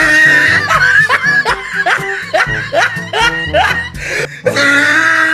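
Background music with a steady low beat, with laughter over it in short rising bursts.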